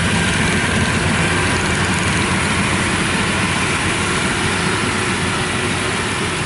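Yanmar combine harvester's diesel engine running steadily as the machine travels over rice stubble. It is running empty, not harvesting, because it is out of grain bags.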